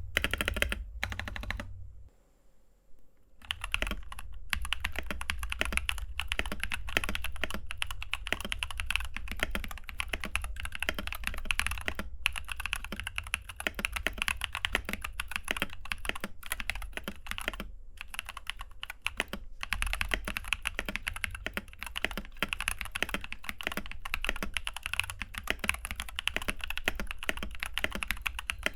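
Fast continuous typing on a mechanical keyboard fitted with Glorious Panda tactile switches, a dense run of keystroke clacks. There is a brief pause about two seconds in, then the typing resumes.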